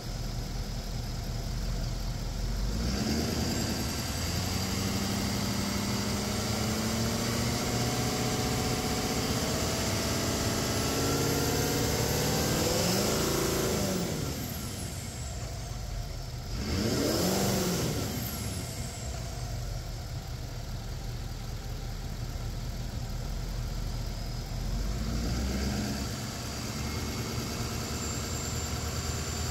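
Ford Power Stroke turbo-diesel V8 of a 2014 F550 running, heard from the open engine bay. The revs climb slowly for about ten seconds and then drop back, a quick blip follows, and a shorter rev comes near the end, settling back to idle between.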